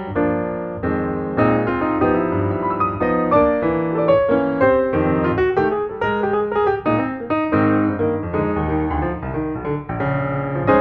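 Background piano music, a steady flow of played notes and chords.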